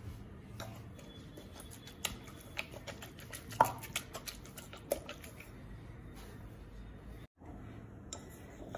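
Wooden saag masher (ghotna) churning cooked mustard greens and millet flour in a pressure cooker: irregular soft knocks and clicks of wood against the metal pot, the sharpest about three and a half seconds in.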